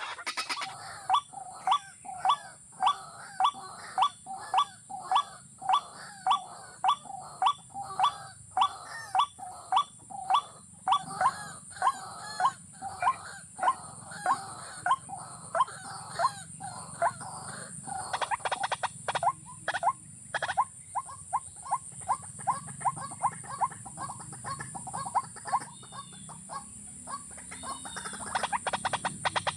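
Waterhen calling: a long, even series of sharp, upward-hooked notes, about two a second, coming a little faster and softer in the second half. A steady high-pitched hiss runs underneath.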